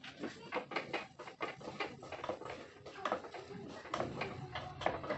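A wooden spoon stirring and scraping inside a pressure cooker, making an irregular run of short clicks and scrapes against the pot.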